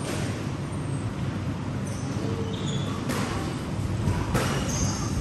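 Squash rally: the ball is struck by rackets and smacks off the walls in three sharp knocks, with short squeaks of court shoes on the wooden floor between them, over a steady low hum.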